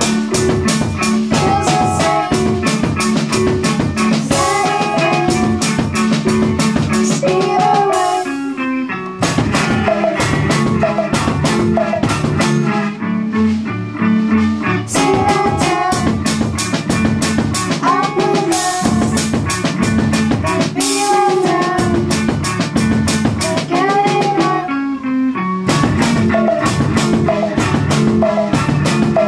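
Live band playing: electric guitar over a drum kit keeping a steady beat, with a short drop in the drums about eight seconds in.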